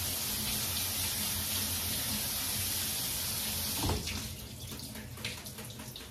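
Kitchen tap running steadily into the sink over lettuce being washed in cold water, shut off with a knock about four seconds in; a few light clicks of handling follow.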